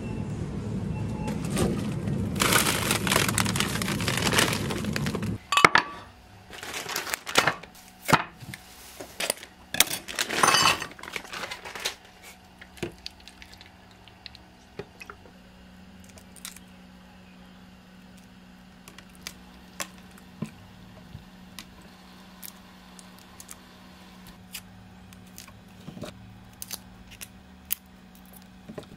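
Busy shop background noise for the first five seconds or so. Then scattered clinks and knocks of kitchen prep with a glass measuring cup and garlic cloves, loudest for a few seconds in the middle, then sparse light clicks over a faint steady hum.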